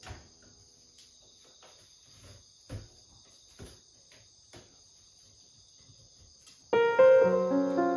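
Faint knocks and clicks as a folded black metal furniture frame is handled on a wooden floor, over a steady high-pitched insect chirring. Background music comes in loudly near the end.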